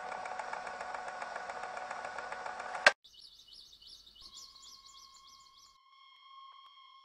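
A steady mechanical whirring rattle with fast, regular ticks cuts off sharply on a click about three seconds in. After it comes a faint, quiet background of small birds chirping in quick repeated notes, with a thin steady hum under it.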